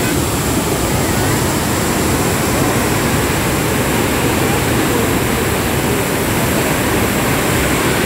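Loud, steady rush of floodwater pouring out through a dam's open spill gates and churning downstream in turbulent rapids.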